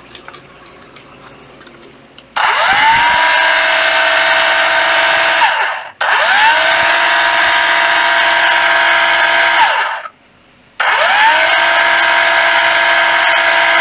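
Makita 1050D 12 V cordless planer running free in the hand, switched on three times. Each time the motor and cutter drum spin up to a steady high whine, run for three to four seconds, then wind down. The third run is still going at the end.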